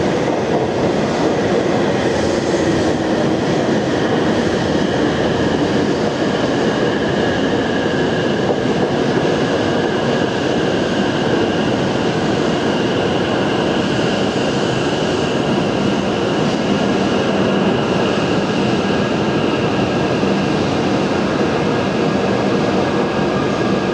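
E7 series Shinkansen train running past on the rails: a loud, steady rolling rumble with a faint steady high whine over it.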